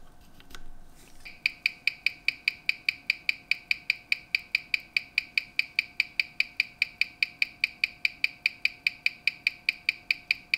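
Ticking of a WW2 Sanford watch's AS 1123 movement, amplified by a timegrapher: an even train of sharp ticks, five a second (18,000 beats an hour), starting about a second and a half in after brief handling clicks. The dirty, unserviced movement is running about 419 seconds a day fast, with its balance amplitude too low to be measured.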